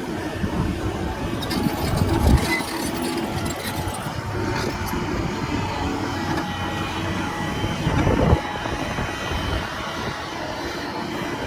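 Doosan excavator's diesel engine running steadily as it works rock, with a heavy thump about two seconds in and another near eight seconds, and a spell of clattering between them.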